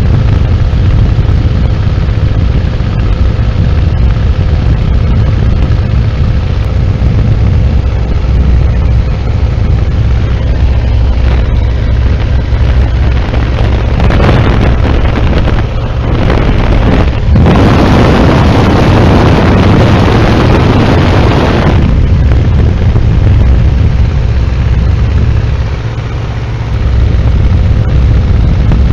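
Biplane engine droning steadily in flight, heard from the open cockpit with wind buffeting the microphone. The wind rush grows much louder for a moment about halfway through and again for about four seconds after that.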